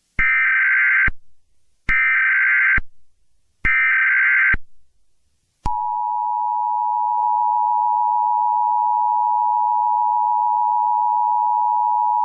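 Emergency Alert System SAME header: three short bursts of warbling digital data tones, each just under a second long and about two seconds apart. About six seconds in, the steady two-tone EAS attention signal begins and holds.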